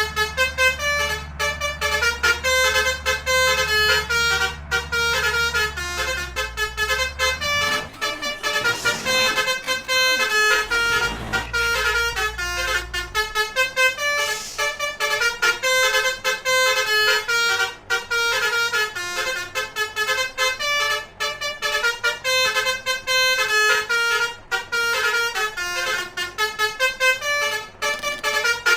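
Multi-tone telolet (basuri) musical horn playing a rapid tune of short, quickly changing notes, over and over without a break. A low steady hum runs under it for the first seven seconds and again briefly in the middle.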